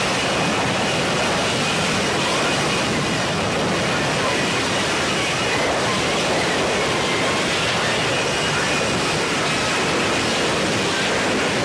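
F-35B Lightning II hovering in short-takeoff/vertical-landing mode, its jet engine and lift fan giving a steady, dense rush of jet noise with a faint high whine.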